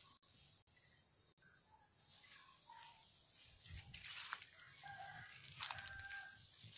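Faint outdoor ambience: a few short bird calls and the crunch of steps on dry leaf litter, over a steady high hiss.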